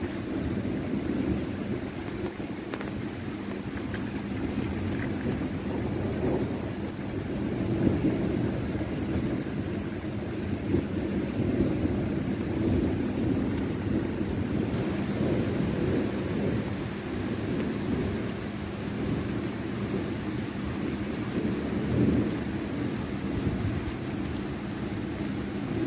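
Steady rain falling on wet pavement, with low thunder rumbling through it and swelling louder a few times, most strongly about eight seconds in and again near the end.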